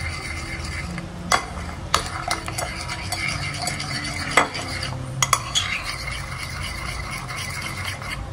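A metal spoon stirring egg-and-tapioca crepioca batter in a ceramic bowl: steady wet scraping, with several sharper clinks of the spoon against the bowl.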